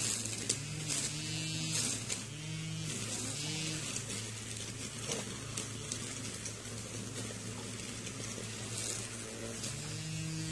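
Small engine running steadily over a low hum, its pitch swelling and dropping every second or so as it is throttled up and down.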